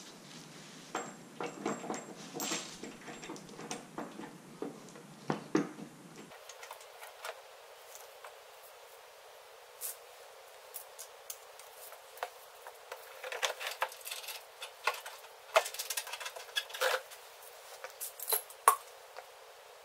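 Irregular metal clicks, clinks and light knocks of a metal light bar and its mounting hardware being handled and fitted against the bumper mounting tabs, with a sharper knock about five seconds in and another near the end.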